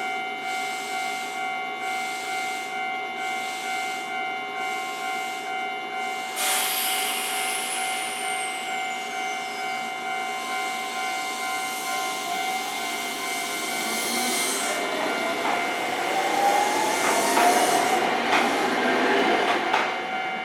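Japanese level-crossing alarm ringing in an even rhythm while a Nankai Koya Line electric train passes through the station: about six seconds in a high falling whine comes in, then the train's motor whine rises and wheels click over the rail joints, loudest near the end.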